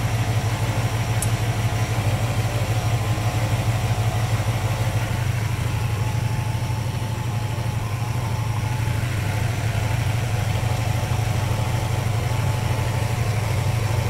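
Porsche 928 S4's V8 engine idling steadily, a low, even rumble that keeps running while automatic transmission fluid is added.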